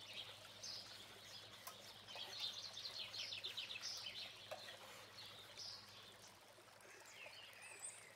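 Wire whisk stirring dry flour and cocoa powder in a metal baking tray: faint, quick scratching strokes, busiest in the middle. Birds chirp faintly in the background near the end.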